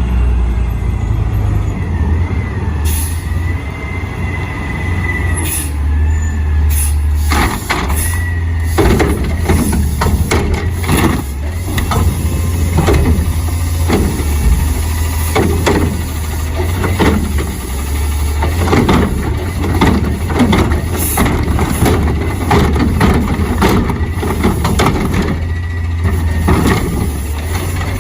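Garbage truck engine running with a steady heavy rumble, with repeated clanks and knocks, and a thin squeal in the first few seconds.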